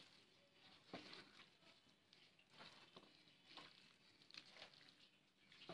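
Faint, irregular wet squelching and patting of a bare hand kneading spice-coated bone-in beef pieces in a pan.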